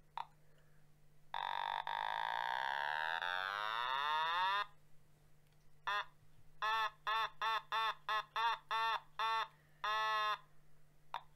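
Otamatone, a handheld electronic synth toy, playing: one long note that slides steadily down in pitch, then a quick run of about nine short notes, each bending slightly up and down, and a last short note.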